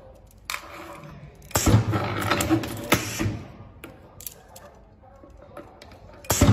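Automatic double-press tape-wrapping machine running a wrap cycle on a transformer coil: a sharp clack at about one and a half seconds in, a second and a half of busy mechanical clatter and clicks, then quiet. A new cycle starts with another clack near the end.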